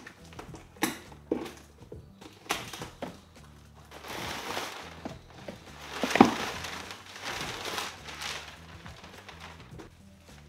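Packing paper and plastic wrap rustling and crinkling as fishing rods are lifted out of a long cardboard box, with a few sharp knocks of cardboard in the first few seconds. The rustling comes in long stretches, loudest about six seconds in.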